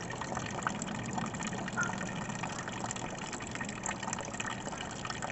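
Steady rush and splash of water circulating through an above-ground pool's filter system, with a low steady hum from the pool pump.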